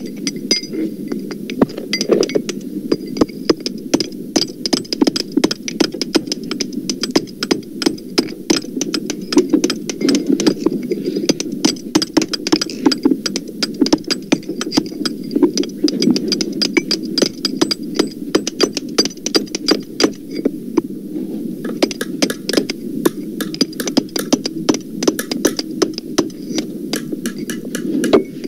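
Many hammers striking in a dense, irregular clatter, pitched down to sound deeper, over a steady low hum.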